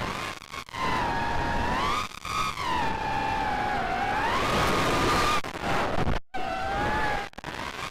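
Racing quadcopter's four Cobra 2206 2100kv brushless motors with triblade props whining, the pitch rising and falling with the throttle, over wind rush on the onboard camera. The sound cuts out for a moment about six seconds in.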